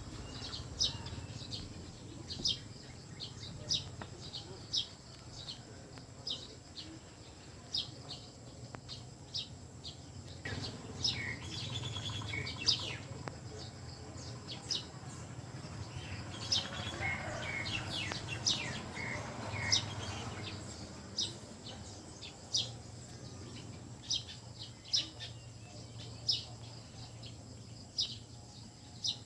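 A bird chirping over and over, short high notes about once a second, with a busier stretch of calls in the middle. A faint steady high tone runs underneath.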